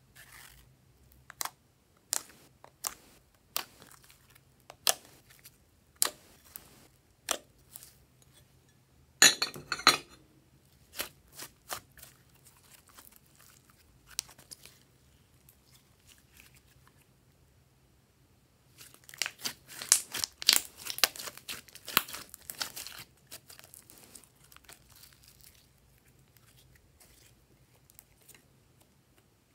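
Glossy slime being pressed, pulled and folded by hand, popping and crackling as trapped air bursts: a string of sharp pops about once a second, a short burst of dense crackling about a third of the way in, and a longer stretch of dense popping and crackling past the middle.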